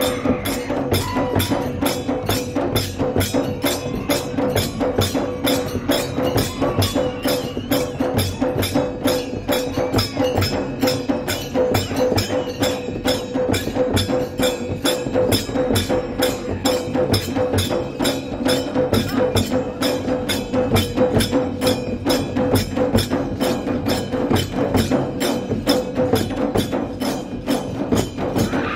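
Several large rope-tensioned dhol barrel drums beaten together with sticks and hands in a fast, even rhythm, over a steady held tone.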